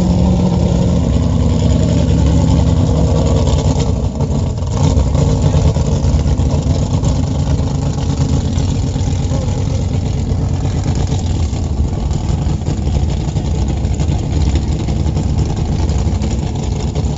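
Mud bog vehicle's engine running hard and steady as its big tyres work through deep mud, with a continuous low engine drone.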